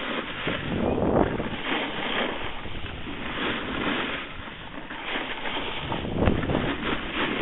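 Wind buffeting the microphone during a fast run down a snowy piste, with the hiss and scrape of edges sliding over the snow coming in uneven surges and a sharper swish a little after six seconds.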